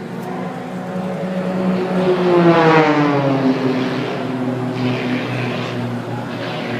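Propeller aerobatic plane flying past at an air show. Its engine note drops steeply in pitch as it passes, loudest about two and a half seconds in, then runs on at a lower, steadier pitch as it moves away.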